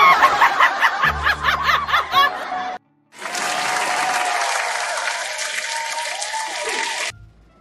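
Laughter right after a joke's punchline, then a short break and about four seconds of applause that cuts off suddenly.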